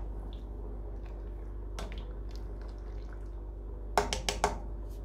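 Pot of water at a boil with pasta in it, bubbling and sloshing as a silicone spoon stirs it, over a steady low hum. A single click about two seconds in, and a quick run of about four sharp clicks near the end as the utensil knocks against the stainless steel pot.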